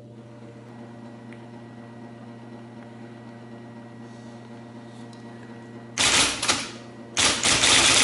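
IBM Selectric II golf-ball typewriter, freshly repaired, with its motor humming steadily; about six seconds in, typing starts: a short burst of rapid typeball strikes, a brief pause, then a fast clattering run of keystrokes.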